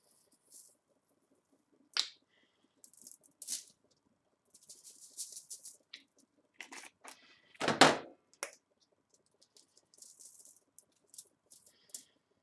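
Seasoning shaker shaken in several short rattling bursts as granules are sprinkled. A sharp click comes about two seconds in, and a louder knock or handling thump comes a little before eight seconds.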